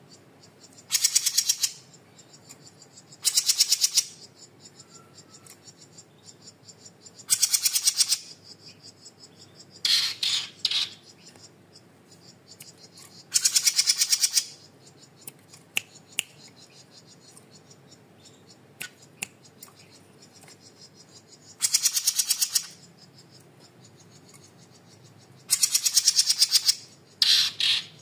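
Small caged songbird giving loud, very fast trilled bursts, each about a second long, repeated about eight times with pauses between.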